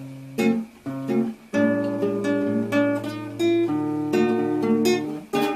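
Acoustic guitar strumming chords, a new chord about once a second with the notes ringing on between strokes: the instrumental intro of a song.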